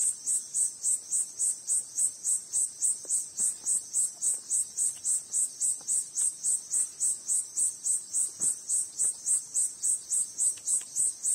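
Insect chirping steadily and high-pitched, about four even chirps a second.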